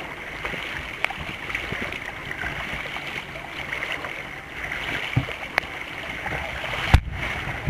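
Water rushing and splashing against a kayak's bow as it is paddled along, with a few light clicks and knocks against the hull; a sharp knock near the end is the loudest sound.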